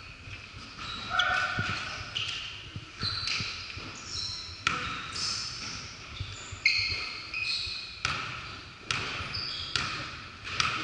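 Basketball game sounds on a hardwood gym floor: sneakers squeaking in short, high bursts and a basketball bouncing with sharp knocks, scattered irregularly.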